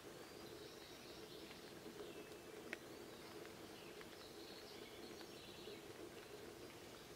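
Faint chirps and calls of several small birds over a steady background hiss of rain, with one sharp tick a little under three seconds in.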